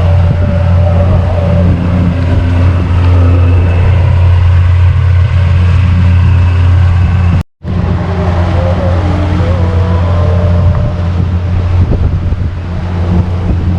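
Boat engine running steadily underway, a low even drone, with wind noise on the microphone. The sound cuts out for a moment about halfway through.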